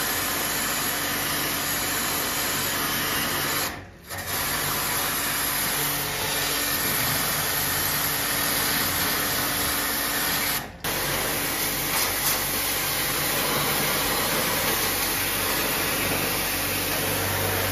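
Portable high-pressure water washer running steadily, its electric motor pump humming under the hiss of the water jet sprayed into a split air conditioner's indoor unit coil during a wet service. It drops out briefly twice, about 4 s and 11 s in.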